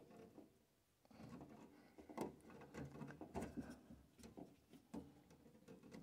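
Faint, scattered rustles and light knocks of a hand handling the thin rubber pressure-switch hose and its fitting inside a gas furnace, a little louder about two and three and a half seconds in.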